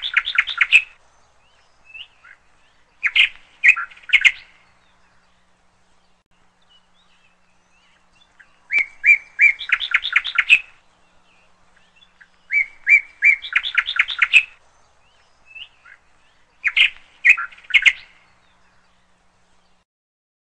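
A small songbird singing in short phrases: a few clear chirps followed by a quick trill, repeated in several bursts with pauses of a few seconds between them, falling quiet near the end.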